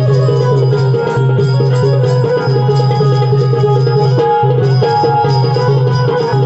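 Loud drum-led folk music: hand drums playing a fast, even rhythm over sustained tones, with no voices.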